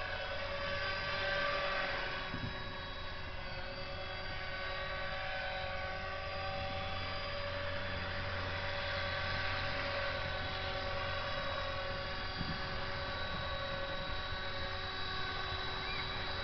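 Align T-Rex 450 electric RC helicopter flying low: a steady whine from its brushless motor and rotor head in several tones, drifting slightly in pitch as the pilot works the controls.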